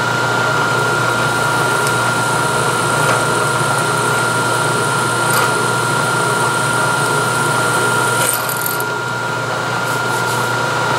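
Vertical milling machine spindle running with a letter F twist drill boring a tap-drill hole in steel, lubricated with cutting oil. It makes a steady hum with a constant high whine. A short hiss comes about eight seconds in, after which it runs a little quieter.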